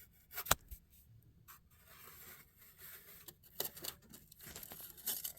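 Faint scraping and rubbing with a few sharp clicks, the loudest about half a second in: hands reaching and fumbling inside a disassembled window air conditioner.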